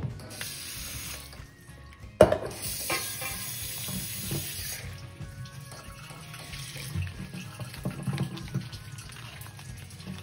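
Kitchen tap running into a sink as raw crabs are rinsed, broken by a sharp knock about two seconds in. The water shuts off about halfway through, leaving light knocking and handling of the crabs in the sink.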